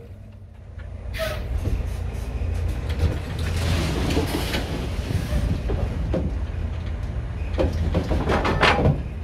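Semi truck's diesel engine idling steadily, with a few short knocks and clicks over it.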